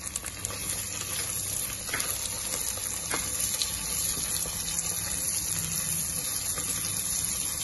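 Sliced onions sizzling steadily in hot oil and ghee in an aluminium pressure cooker, frying until they brown, stirred with a wooden spoon that gives a few light knocks.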